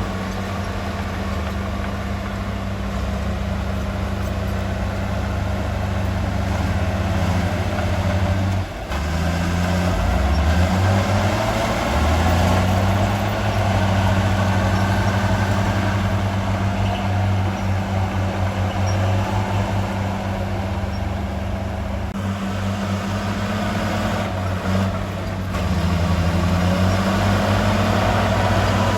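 Heavy diesel engine of earthmoving machinery running steadily, its pitch shifting a few times as the engine speed changes.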